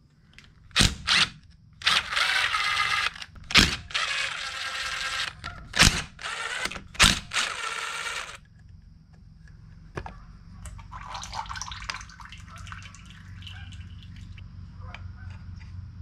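A cordless drill-driver backs out engine side-cover screws in several short runs of about a second each, with sharp clacks between them. After that there is quieter clatter as the cover is worked loose.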